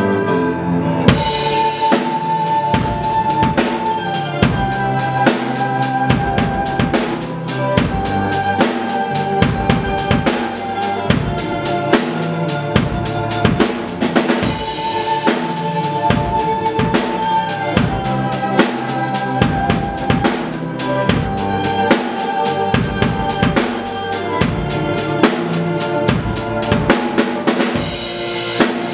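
Instrumental rock music: a drum kit comes in about a second in with a steady beat of bass drum and snare, under sustained melody lines.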